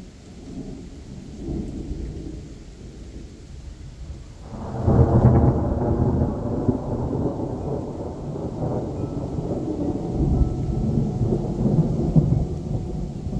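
Thunder during a summer thunderstorm: a low rumble that breaks into a loud crack about four and a half seconds in, then rolls on heavily, over steady rain.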